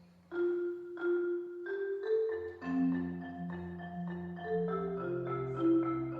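Marimba played with mallets: a melody of separate struck, ringing notes, with low bass notes added about two seconds in.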